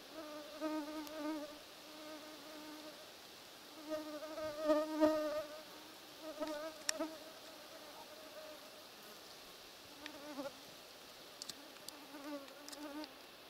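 A flying insect buzzing close to the microphone. It comes and goes in several passes with a wavering pitch and is loudest about five seconds in.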